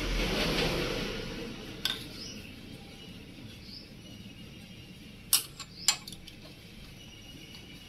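Sharp metallic clicks of a 5 mm Allen key working a bolt loose on a motorcycle's cylinder head: one about two seconds in, then two louder ones about half a second apart past the midpoint. A soft hiss fades out over the first two seconds.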